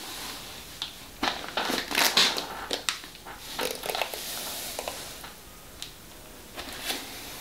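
A hairbrush dragged through mousse-coated curly wig hair, making a run of short, irregular brushing strokes that are thickest in the first half and fainter and sparser later.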